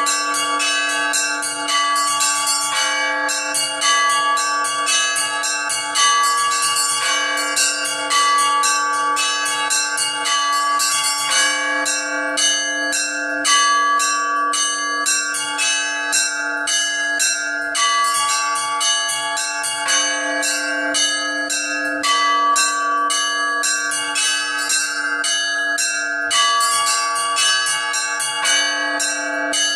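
Orthodox church bells struck by an automatic electronic bell-ringing system, playing a slow weekday peal. A low bell rings out about every two seconds under quicker, continual strokes of smaller bells, their tones overlapping.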